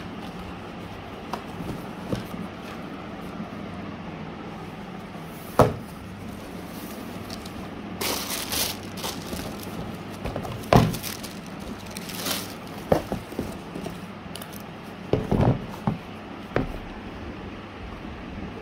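Hands handling a cardboard shoe box and unfolding tissue paper: a few sharp knocks and taps with bursts of paper rustling, over a steady low background hum.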